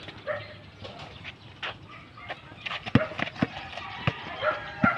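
Basketball dribbled on a concrete street: three sharp bounces in the second half, two close together, then a third near the end.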